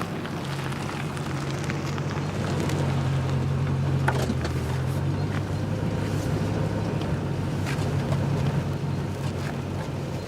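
Car engine running with a steady low hum, as on a drive.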